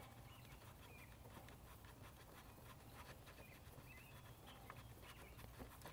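Near silence: faint rubbing and ticking of a hand gripping and turning a spin-on oil filter loose, with a few faint, short bird chirps.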